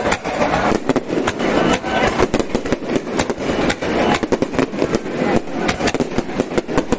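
Fireworks display in rapid succession: shells bursting and crackling overhead, many sharp reports a second with no pause.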